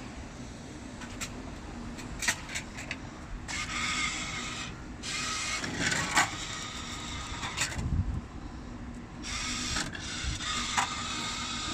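Christ Varius rollover car wash running. A steady machine hum carries through, with several stretches of hissing, each a second or two long, and scattered clicks.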